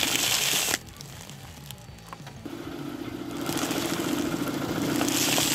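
A car tyre rolling slowly over a plastic pack of puffed rice cakes, the wrapper crinkling and the cakes crackling as they are crushed, with a car engine running at idle. The crushing noise cuts off suddenly under a second in and starts again about three and a half seconds in.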